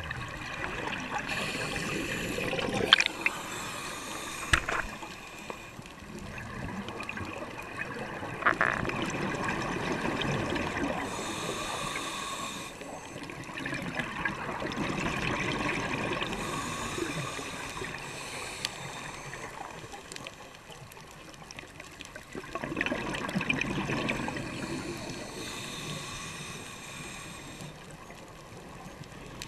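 Scuba diver breathing through a regulator underwater: a hiss on each inhale and a gurgling rush of exhaust bubbles on each exhale, repeating every few seconds. A few sharp clicks come in the first ten seconds.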